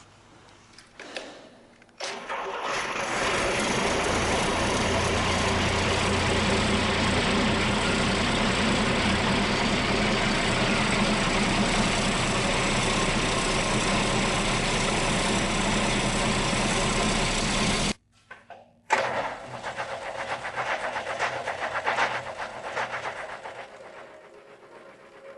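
Rebuilt diesel engine starting cold about two seconds in and running loud and steady, without coolant and with its turbocharger disconnected. Near the end it breaks off suddenly, then a quieter, uneven running sound fades away.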